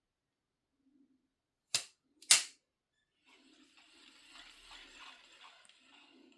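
Spinning reel being handled: two sharp clicks about half a second apart, then a few seconds of soft, rhythmic rasping, about three strokes a second.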